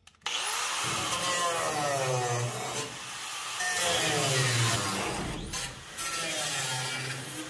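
Electric angle grinder spinning up suddenly and cutting into a sheet-steel bracket under a car's floor pan, the pinion snubber bracket that is being cut out. Its high whine sags briefly about two thirds through as the wheel bites, then recovers.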